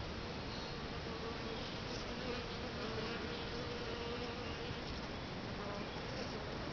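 Honey bees buzzing around the entrance holes of a bait hive, a wavering hum that fades away about five seconds in.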